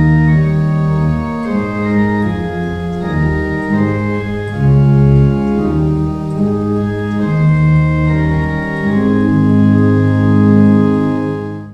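Organ playing sustained chords that change step by step, a slow hymn-like passage, cut off abruptly near the end.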